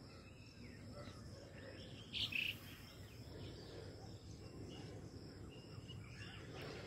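Faint outdoor background noise with a brief high chirp about two seconds in.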